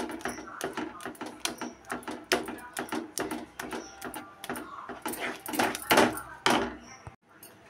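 Wooden spatula stirring and pressing a thick milk and ground sabudana mixture in a non-stick pan: a run of short scraping, squishing strokes, the loudest about six seconds in.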